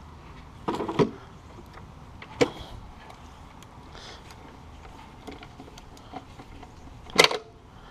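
Ratchet socket wrench loosening and working off the rear wheel bolt of a Razor E100 electric scooter: a few separate clicks and knocks, the loudest near the end.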